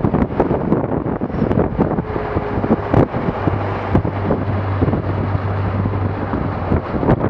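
Strong wind buffeting the microphone, with frequent short knocks and splashes as spray and chop hit a small open boat. A low steady hum runs from about three seconds in until near the end.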